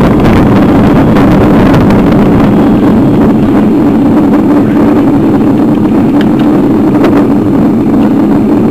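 Loud, steady rumble of wind and riding noise on a bicycle-mounted camera's microphone, with a few faint knocks and rattles.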